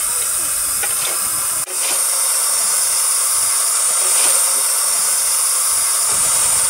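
Steam hissing steadily and loudly from a miniature saddle-tank steam locomotive standing on the track, with a brief dip about a second and a half in.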